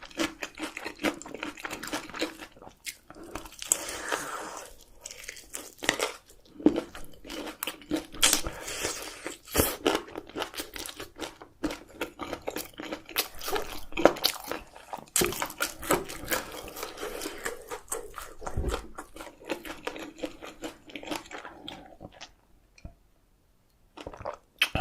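Close-miked eating sounds: chicken with cheese sauce being bitten and chewed, with crisp crunches throughout. The sound drops almost to silence for about two seconds near the end.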